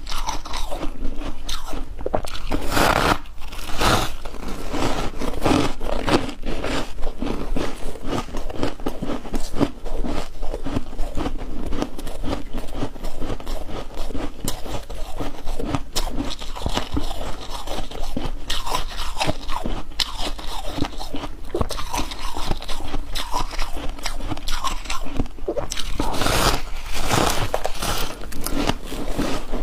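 A person biting and chewing chunks of ice: a dense, steady run of crisp cracks and crunches, with a few louder bites about three seconds in and again near the end.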